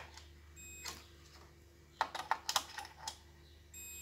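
Light clicks and taps of multimeter test probe tips against components on an LCD TV power supply board, several in quick succession about two seconds in, over a faint steady hum.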